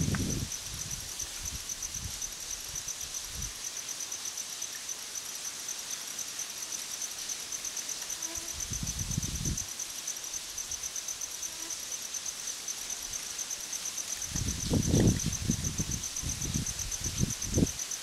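A steady, high, fast-pulsing insect trill. Low rumbles come in briefly about nine seconds in and again through the last few seconds.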